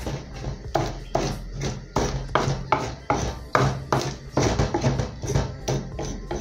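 Wooden pestle grinding a green paste in an earthenware grinding bowl (asanka): a steady run of knocking, squelching strokes, about two to three a second.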